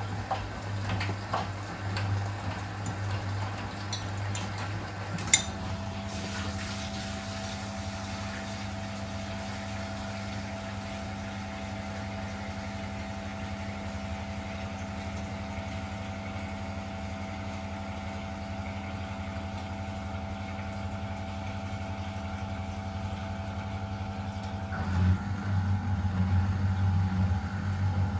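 Miele Electronic WS 5405 front-loading washing machine running its cotton wash: a steady hum with scattered clicks, and a sharp click about five seconds in. Then comes a smoother, steady hum with a faint whine, and a louder, more uneven hum starts again near the end.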